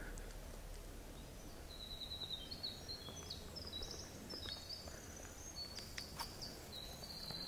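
A songbird singing one long, rapid, jumbled run of high notes, starting a couple of seconds in, over a faint outdoor hush.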